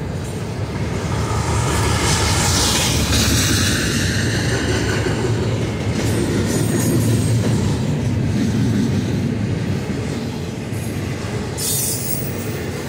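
Double-stack intermodal train's well cars rolling past close by: a steady rumble of steel wheels on rail, with a high wheel squeal about two seconds in and again briefly near the end.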